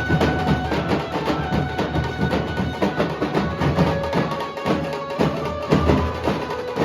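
Nasik dhol ensemble playing: dhol drums beat a fast, dense, driving rhythm, with held melodic notes sounding above the drumming.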